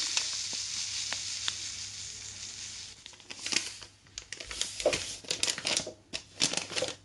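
Rustling and crinkling as poppy seeds are tipped from their packet into a bowl of batter: a hiss that fades over the first three seconds, then separate rustling bursts with small clicks.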